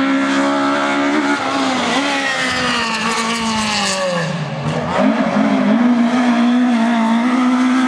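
Rally car engine at high revs on a stage; the engine note dips in pitch about halfway through, then picks up again and holds steady.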